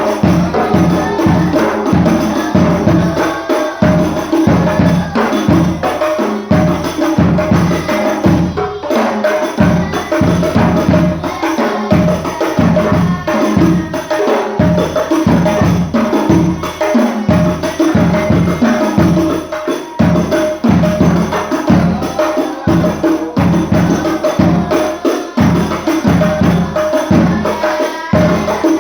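Hadroh ensemble playing: Indonesian rebana frame drums and a bass drum beating a fast, dense, steady rhythm.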